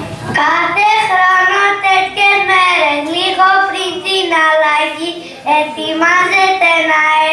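Young children singing a song, held melodic notes with a short break a little after five seconds in.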